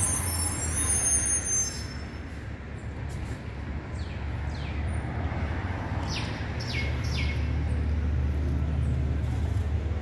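Busy city street traffic: buses, vans and cars pass with a steady low engine drone that swells in the second half. A high brake squeal sounds for the first couple of seconds, and a few short high chirps falling in pitch sound around the middle.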